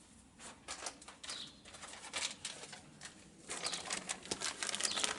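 Rapid, irregular light clicks and taps of small metal parts being handled, thickest in the last two seconds. A bird chirps briefly about a second in.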